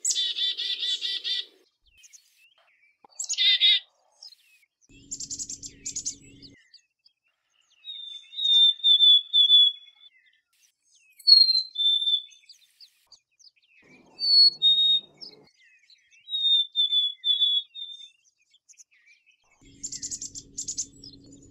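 Black-capped chickadee calling in several bursts. A harsh buzzy call comes at the start, followed by runs of short high notes and two-note whistles that drop in pitch on the second note.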